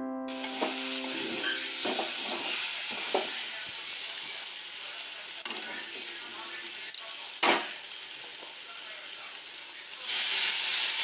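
Food sizzling as it fries in a pan while it is stirred, with a few sharp knocks and scrapes of the spatula against the pan. The sizzle gets louder near the end.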